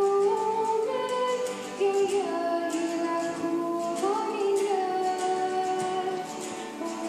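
A girl singing a slow melody with long held notes while strumming an acoustic guitar.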